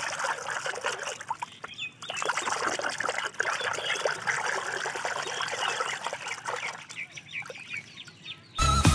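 Water splashing and trickling in a tub as a plastic toy animal is rinsed and rubbed by hand, with many small splashes and drips; it thins out after about seven seconds. Electronic music cuts in suddenly right at the end.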